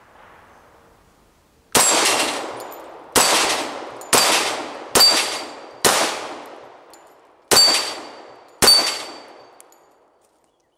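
Seven pistol shots from a Ruger American Pistol in .45 ACP knocking down steel plates: sharp reports a second or so apart, with a longer gap before the last two, each trailing off in echo. Several hits carry a short metallic ring from the struck steel plate.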